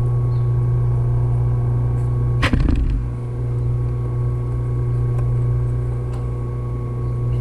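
Steady low electric hum, with one sharp metallic click about two and a half seconds in as the steel needle plate of a Consew 226 industrial sewing machine is fitted into place over the hook.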